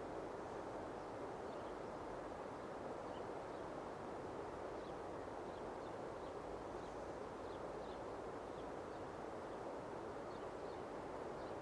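Quiet outdoor mountain ambience: a steady soft rushing hiss, with faint high bird chirps here and there.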